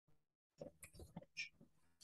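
Near silence: room tone, with a few faint, short, indistinct noises between about half a second and a second and a half in.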